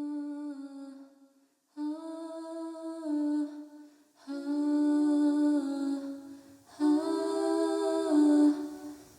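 A voice humming a slow, unaccompanied melody in four short phrases with brief pauses between them.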